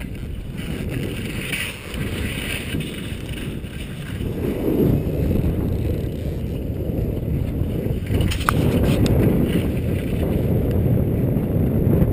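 Low rumbling noise of skis running over snow while snowkiting, mixed with wind buffeting the head-mounted camera's microphone; it grows louder about four seconds in. A faint click comes about eight seconds in.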